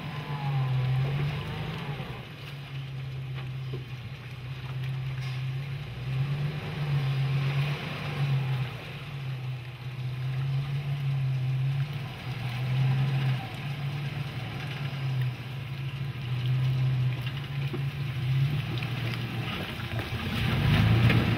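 Jeep Wrangler engine running under load as it crawls through a muddy water crossing. The engine note rises and falls with the throttle every second or so, and grows louder near the end.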